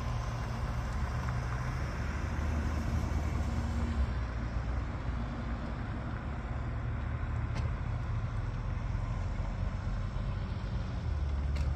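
Car engines and exhausts rumbling low and steady as a line of cars drives slowly by, swelling a little near the end as one passes closer.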